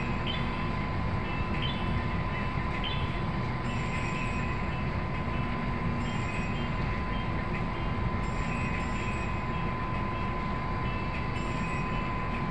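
A small boat's engine running steadily under way, a continuous mechanical drone with a constant thin whine through it.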